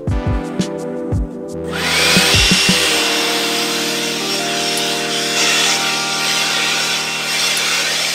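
Cordless leaf blower's electric motor spinning up with a rising whine about two seconds in, then running steadily as a loud rush of air, over background music.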